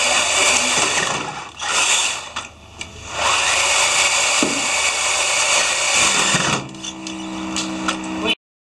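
Electric motors of a robot's cube-gripper prototype spinning its intake wheels, a loud power-tool-like whir in bursts. It drops out briefly about a second and a half in and again around two and a half seconds, runs lower and steadier with a hum near the end, then cuts off suddenly.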